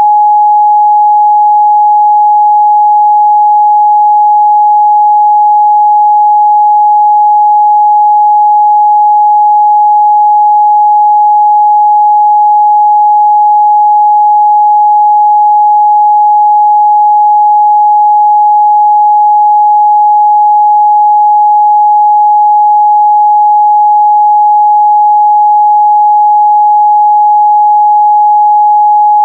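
Steady, loud 838 Hz pure sine-wave test tone, a single unchanging pitch.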